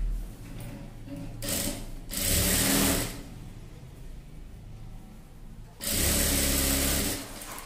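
Industrial sewing machine stitching a dart in a blouse front. It runs in two short spells: one from about a second and a half in, lasting about a second and a half, and another from about six seconds in, lasting just over a second.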